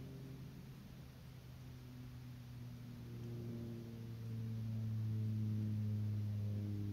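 Soft ambient background music: a low held drone with slow, quiet higher notes coming in and out, swelling about four seconds in.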